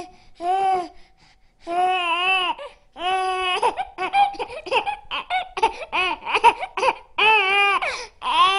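Young child crying: several drawn-out high wails, with a stretch of short choppy sobs in the middle.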